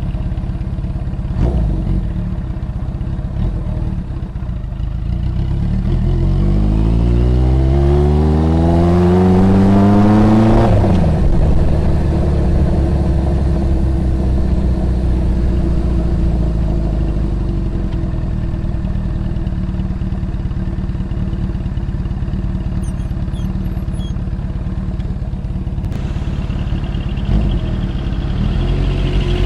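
Suzuki GS750's air-cooled inline-four engine running through a homemade 50 mm exhaust silencer, deep and loud. About a quarter of the way in the engine note climbs steadily for several seconds, then drops sharply as the throttle closes or a gear changes, and the engine carries on at a steady lower pitch.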